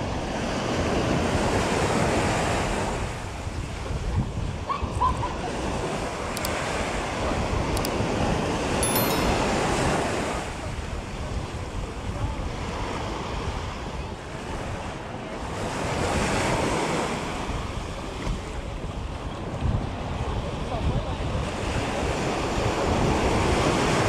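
Small surf breaking and washing up a sandy beach, the wash swelling and fading every six or seven seconds, with wind rumbling on the microphone.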